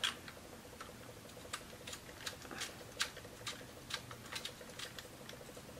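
Faint, irregular small plastic clicks and taps from handling a clip-on phone holder on a ring light.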